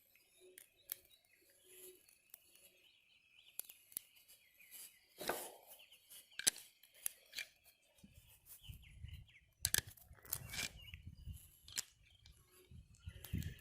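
Scattered small clicks and creaks of a metal fitting being worked by hand into a wet 4x4, with birds chirping faintly behind. From about eight seconds in there is a low rumble of handling noise.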